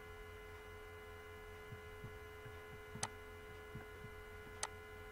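Faint steady electrical mains hum, with two sharp computer mouse clicks about three seconds and four and a half seconds in.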